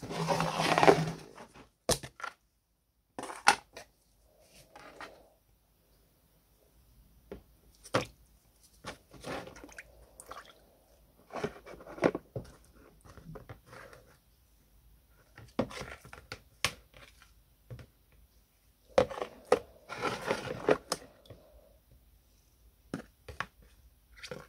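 Handling sounds of a small brass planter part being worked in a plastic tub of green liquid with wooden sticks: scattered clicks, knocks and scrapes. There is a louder noisy burst at the very start and another about twenty seconds in.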